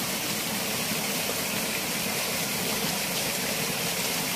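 Water gushing steadily from a solar irrigation pump's discharge pipe and splashing into a concrete tank, an even hiss that does not change.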